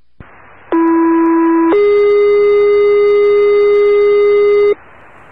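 A loud, steady electronic tone, lower for about a second, then stepping up in pitch and held for about three seconds before cutting off sharply, over a faint hiss.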